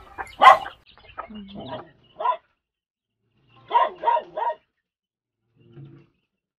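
Dog barking in short separate barks: a loud bark about half a second in, a few more, then three quick barks in a row around four seconds in, and a faint one near the end.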